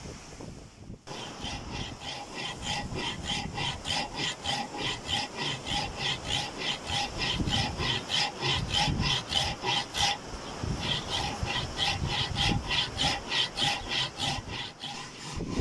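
A hand tool rasping back and forth on wood in quick, even strokes, about three a second, with a brief pause about two-thirds of the way through.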